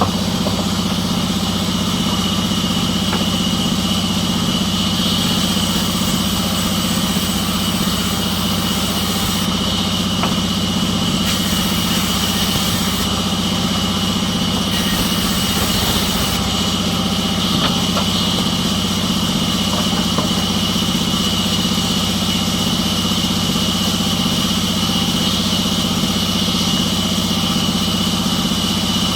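An engine running steadily at one constant speed, with a steady high-pitched whine above its hum and no change in load.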